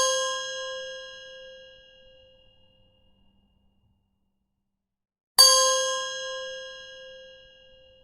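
High bell struck with a brass hammer: the ring of a strike just before fades out over about two and a half seconds, then a second sharp ding about five and a half seconds in rings out and fades.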